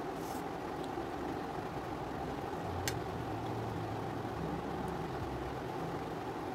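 A steady low hum runs throughout, with a single short click about three seconds in.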